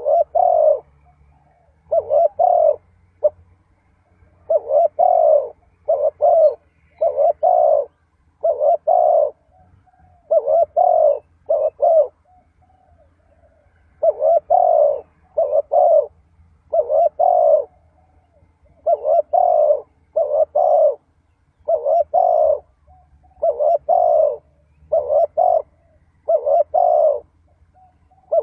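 Spotted dove cooing over and over: phrases of two to four low coos with short pauses between them.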